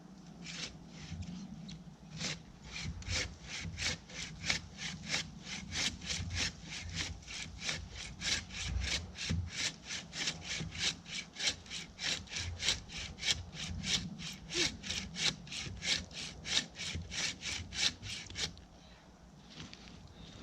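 Hand saw cutting through a tree trunk in fast, even strokes, about three to four a second, stopping near the end.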